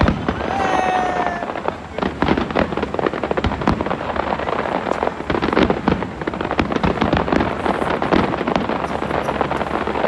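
Aerial fireworks bursting in a large display: many overlapping bangs and crackles in quick, irregular succession without a break.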